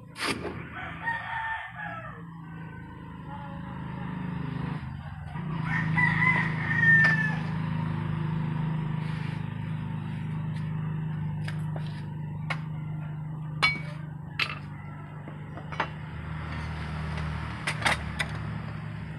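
A rooster crowing, loudest about six to seven seconds in, over a steady low hum. Sharp metal clinks at the start and through the second half as steel bolo blades are handled.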